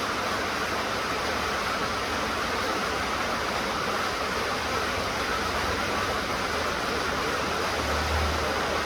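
Steady rain falling, an even hiss, with a low rumble swelling briefly near the end.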